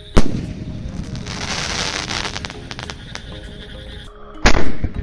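Asok Fireworks Espresso skyshot: an aerial shell bursts with a loud bang just after the start, followed by about two seconds of hiss and crackle. About four and a half seconds in, a second loud bang comes as the next shell is launched from the ground tube.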